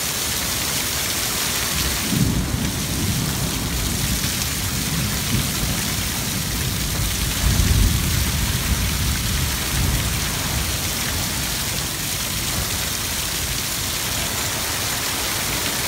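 Heavy hurricane rain pouring steadily, with deep low rumbles welling up twice, a couple of seconds in and again around the middle.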